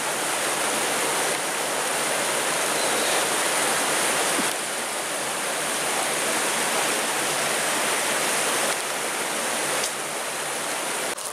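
Steady rush of flowing river water, an even hiss with no distinct splashes.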